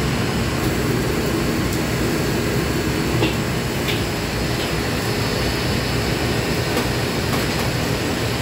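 Steady roar of a commercial wok range's burners and the extraction hood above it, with a few light clinks of a ladle against a wok.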